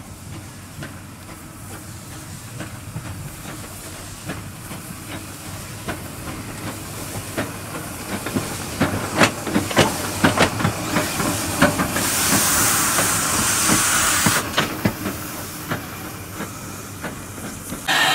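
Saddle-tank steam locomotive approaching and passing at low speed, growing steadily louder, with irregular clanks and clicks from its wheels and motion. About two-thirds of the way in, steam hisses loudly for about two seconds.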